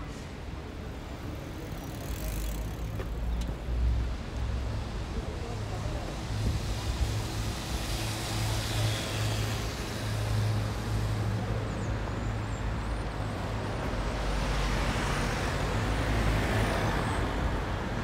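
City street traffic: a steady low engine rumble from cars and scooters, swelling as vehicles pass in the middle and again near the end.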